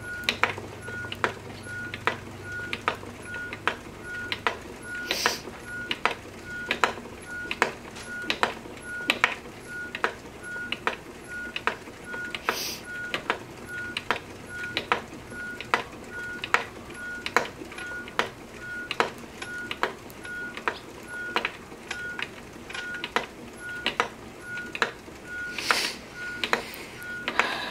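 Wooden spinning wheel being treadled steadily: an even clicking about three times every two seconds, each click with a brief high squeak, as the flyer and bobbin spin.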